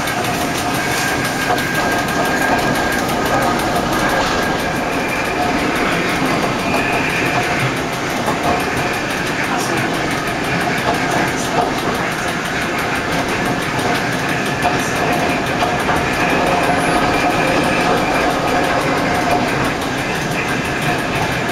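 Electric railcar of the Lauterbrunnen–Mürren metre-gauge mountain railway running steadily along the track, heard from the driver's cab. Its wheels rumble, with occasional clicks over the rail joints and a faint high whine.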